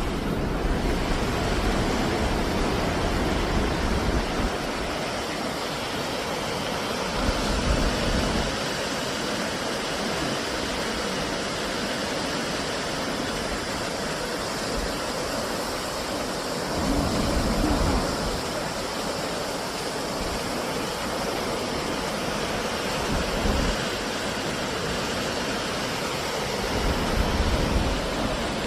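The steady rush of the Gullfoss waterfall, with gusts of wind buffeting the microphone now and then.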